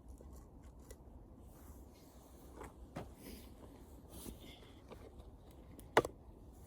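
Wood bonfire crackling, with scattered faint snaps and one sharp loud pop about six seconds in.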